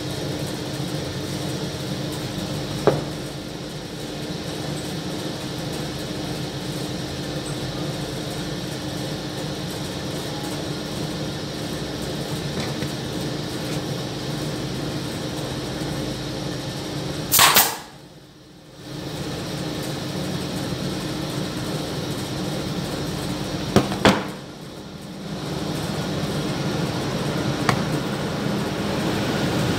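Steady machine hum of a workshop, with a pneumatic nailer firing twice, about halfway through and again some six seconds later, each shot a sharp bang with a short rush of air. A few light wooden clicks come from parts being handled.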